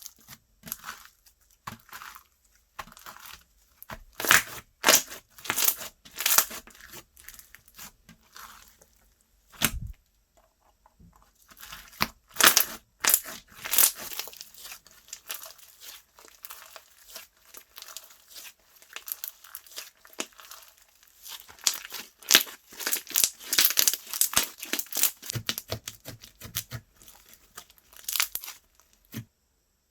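Slime being squeezed, poked and stretched by hand: dense crackling clicks and small pops with sticky tearing sounds, coming in bursts with short pauses.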